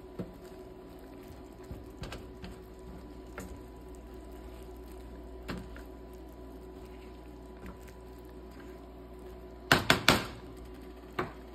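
Silicone spatula stirring cooked apple pieces in a nonstick frying pan: faint scattered soft taps over a steady low hum, then a quick cluster of louder knocks near the end.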